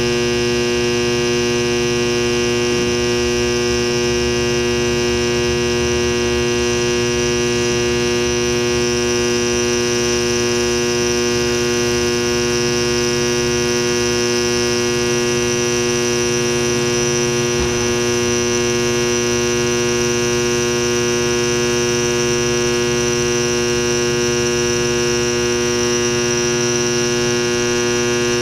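Induction bearing heater humming steadily with a loud electrical buzz while it heats a bearing for shrink-fitting onto a shaft; the hum holds unchanged throughout.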